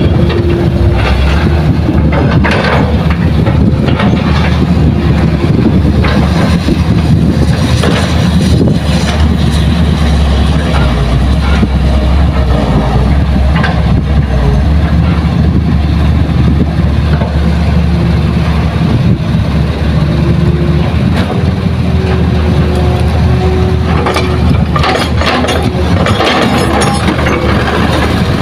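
Diesel engines of a Hitachi hydraulic excavator and dump trucks running steadily, with a few knocks and clatters near the end as earth and rock are loaded into a truck bed.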